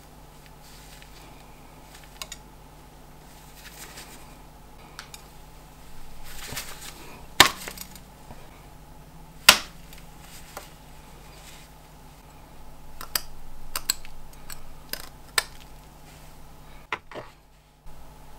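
A thick piece of Tony's Chocolonely dark chocolate with gingerbread crumbs snapping as it is broken by hand: two loud, sharp snaps about two seconds apart past the middle, then a run of smaller cracks as further pieces are broken off, with the rustle of handling in between.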